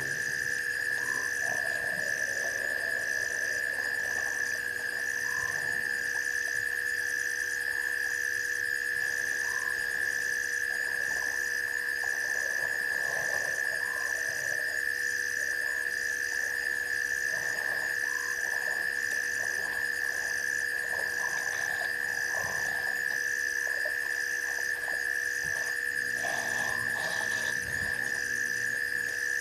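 Night chorus of frogs and insects: a steady high-pitched trill throughout, a faint higher chirp repeating a little more than once a second, and scattered short croaks.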